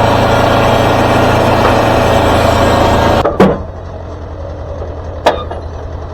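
Wood-Mizer LT40 Super Hydraulic band sawmill running steadily. About three seconds in a sharp knock comes and the sound drops to a quieter steady running, with another sharp knock near the end.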